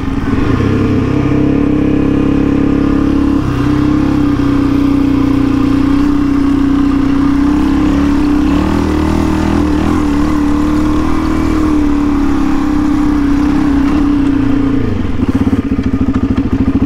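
Suzuki DR-Z400E's single-cylinder four-stroke engine running steadily as the bike rides up a sand track. About fifteen seconds in it eases off to a low-revving putt with each firing beat distinct.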